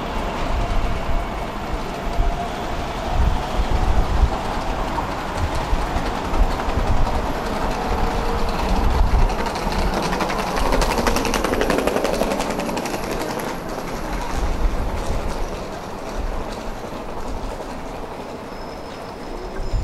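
Electric tram pulling away and rolling past, with a steady whine and rumble. About halfway through, a run of quick clicks and a louder rumble come as its wheels rattle over the track, then the sound fades as it moves off.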